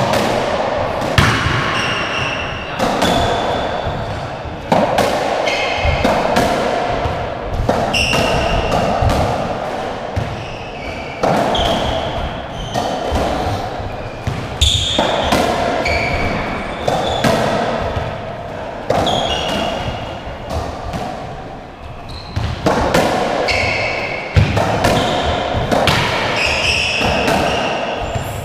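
Racketball rally on a squash court: the hollow rubber ball is struck and smacks off the walls, echoing, about every second or two, with court shoes squeaking on the wooden floor between shots.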